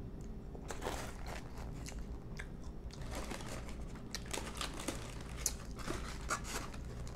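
Close-miked chewing and crunching of crispy lemon pepper chicken wings, with short crackles. In the second half, paper liner crinkles and the foam takeout box rustles as a hand picks through the wings.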